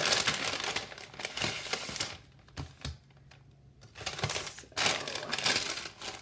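Kraft-paper envelope and brown-paper wrapping rustling and crinkling as they are handled, with a quieter lull in the middle holding a few light taps, then another loud rustle.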